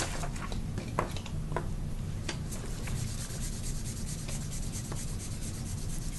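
Chalk pastel being rubbed with a pad: a few scratchy strokes, then quick, even back-and-forth rubbing from about two seconds in.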